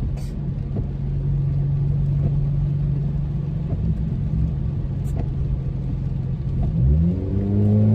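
Car engine and road noise heard inside the cabin while driving: a steady low hum, whose pitch rises about seven seconds in as the car speeds up and then holds louder.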